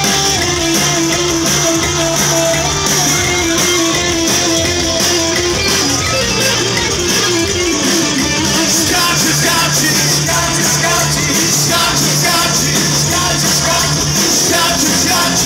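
Live rock band playing: electric guitar over bass and drums, loud and steady.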